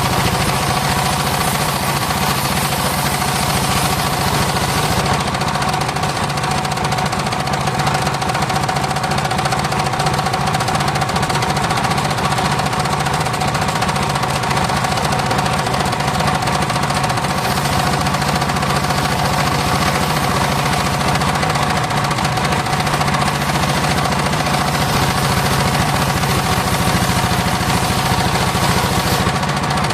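Homemade circular sawmill (serkel) running steadily while sawing mahogany: a constant whine, unchanged in pitch, over the clatter of the machine's engine.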